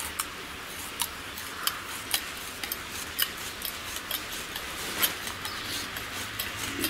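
A series of sharp, irregular clicks and ticks, about two a second, over a steady faint hiss.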